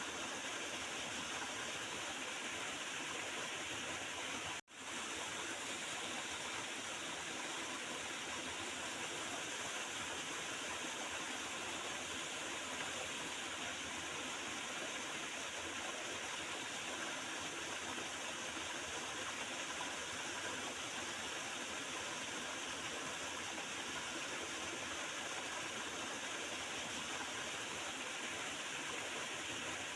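Small river's water gurgling and flowing steadily. It cuts out for a split second about four and a half seconds in.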